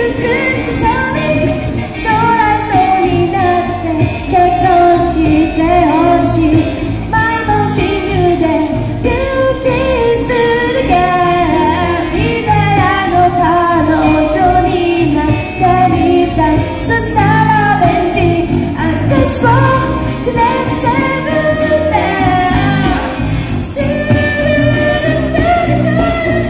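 A woman singing a pop song with instrumental accompaniment.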